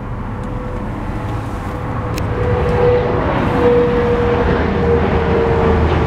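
A steady engine drone with a constant hum, growing louder over several seconds. A car door is opened, with a couple of light clicks.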